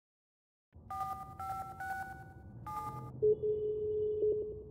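Push-button telephone keypad dialing: four touch-tone beeps in quick succession, the third held longest. A steady tone follows from a little past halfway.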